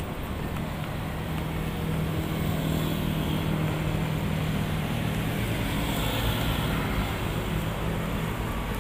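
Road traffic: a steady low engine hum that swells a couple of seconds in and eases off later, over a constant wash of traffic noise.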